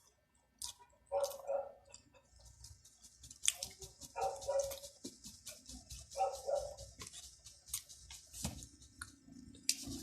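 A dog barking in short runs of two or three barks, about four times, with crisp crunchy chewing close by from a few seconds in.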